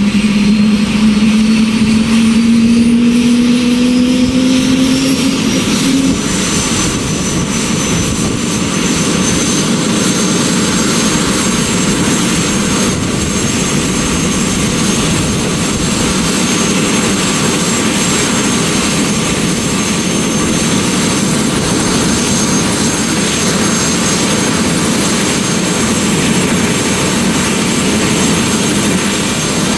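Airbus H130 helicopter's turbine and rotor running on the ground. For the first six seconds a strong tone rises in pitch, then stops abruptly. After that come a steady high turbine whine and rotor noise.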